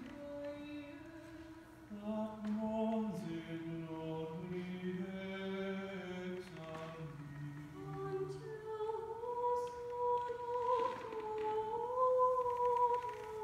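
Mixed chamber choir singing a cappella in parts, holding long chords. Low voices come in about two seconds in and drop out past the middle, leaving the upper voices on sustained notes that rise near the end.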